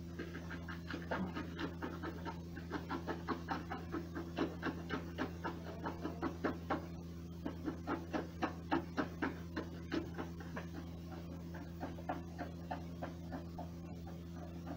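Mouthwash being swished around the mouth: a long run of rhythmic pulses, about three a second, stopping shortly before the end.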